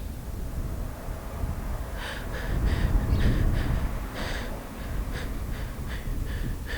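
Fast, repeated gasping breaths, about three a second, starting about two seconds in, over a low rumble.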